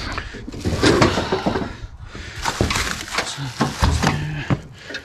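Plastic shrink-wrap crinkling and rustling as wrapped steel sawmill parts are grabbed and pulled free, with a few knocks of the parts.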